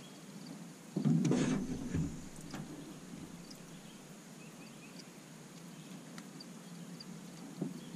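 A short muffled rustle and knock about a second in as a just-caught crappie is handled and brought down to be unhooked. After that comes a quiet riverside background with a faint steady high hiss and a few faint chirps.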